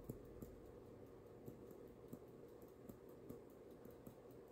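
Near silence, with a few faint, light ticks of a small plastic bottle tapping the rim of a glass beaker as powdered aluminum is shaken out of it.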